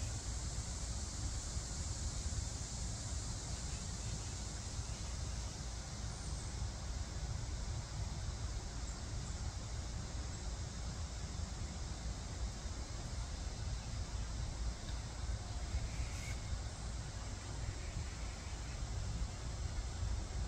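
Steady outdoor background noise with a strong low rumble, a few faint high chirps early on, and one faint click about sixteen seconds in; no distinct sound from the feeding hawk.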